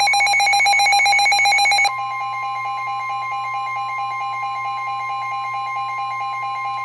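NOAA Weather Radio's steady 1050 Hz warning alarm tone, sounding ahead of a severe thunderstorm warning, with a weather radio receiver's rapidly pulsing electronic alarm beep over it. The beeping drops in volume about two seconds in, and both stop together near the end.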